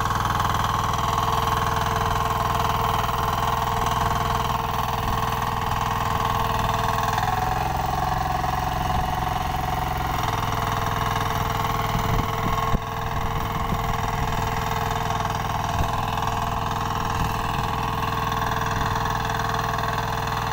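Kirloskar 8 hp walk-behind power tiller running steadily under load as its rear rotary tills the soil. There is a brief bump about thirteen seconds in, after which the engine is a little quieter.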